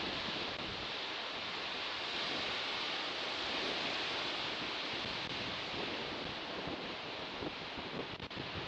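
Sea surf: a steady rush of waves breaking and washing, with no distinct single swells.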